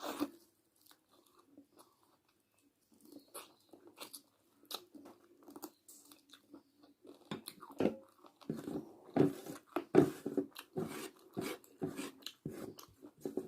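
A person eating chicken biryani: close chewing and biting mouth noises, sparse at first and coming faster and louder from about halfway in.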